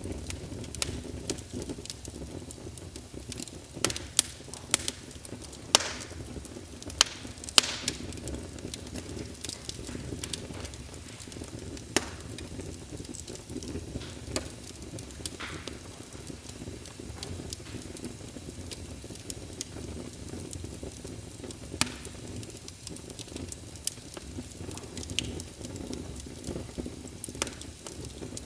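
Wood fire burning: a steady low rumble of flames with irregular sharp crackles and pops, a quick cluster of louder pops in the first third and scattered single snaps after.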